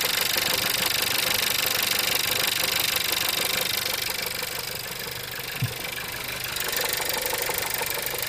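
1.4 TSI engine with a DQ250 six-speed DSG gearbox running, with a rapid, regular knock from the flywheel. The sound dips slightly about four seconds in and comes back up near seven seconds, with one short low thump just before six seconds.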